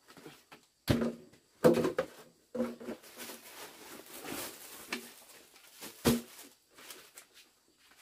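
Things being unpacked from a backpack onto a bamboo table: several knocks as items are set down, the loudest about a second in and again a second later, with a plastic bag crinkling in the middle.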